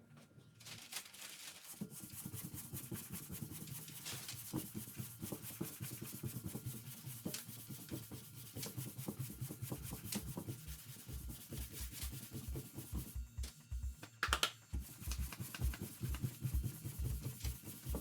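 Sandpaper rubbing on a car body panel in quick, irregular strokes while the repair is flatted for blending, over background music whose beat comes in about halfway through.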